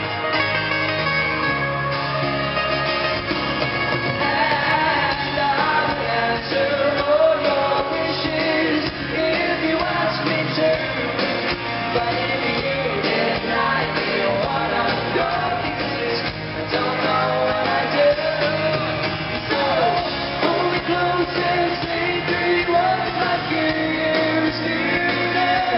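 Live pop-rock band playing, with guitars, drums and singing, heard from the audience in a large arena.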